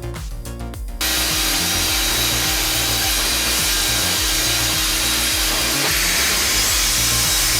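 Band resaw running and cutting through wood, a loud steady sawing noise with a faint hum that starts abruptly about a second in.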